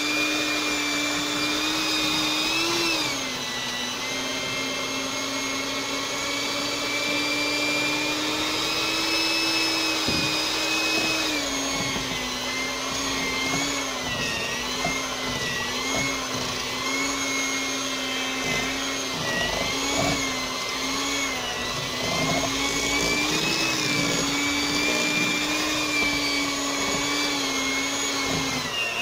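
Electric mixer motor running steadily, beating a thick cream cheese and peanut butter batter as whipping cream is slowly added; its pitch wavers and dips briefly now and then as the load on the beaters changes.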